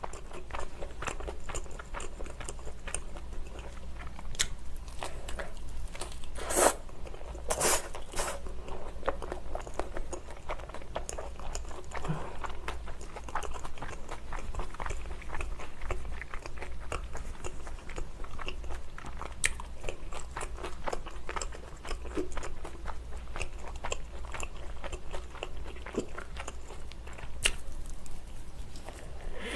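Close-miked mouth sounds of a person eating pizza: bites into the crisp crust crunch, followed by continuous chewing. A few louder crunches come about seven to eight seconds in.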